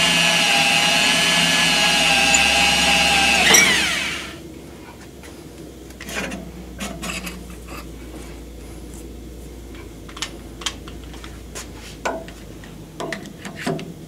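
Electric drill turning a carbide-tipped core drill through a valve guide in a cast-iron big-block Chevy cylinder head, running as a steady whine, then spinning down and stopping about three and a half seconds in. After that come light metal clicks and taps as the core drill and its pilot collar are handled.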